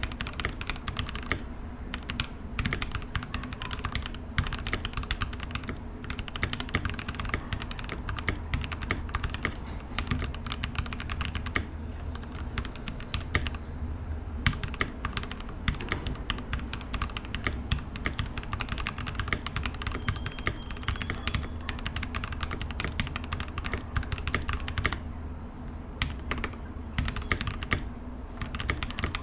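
Continuous fast typing on a Skyloong GK75 75% mechanical keyboard with lubed Gateron Pro Red linear switches and ABS keycaps: a steady run of key clacks, with brief pauses a few times.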